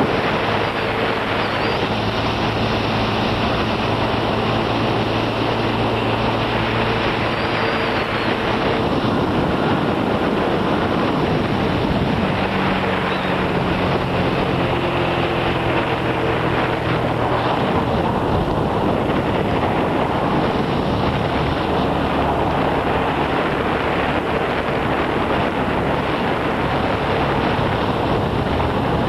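An engine runs steadily under heavy wind noise on the microphone, its hum shifting in pitch a few times.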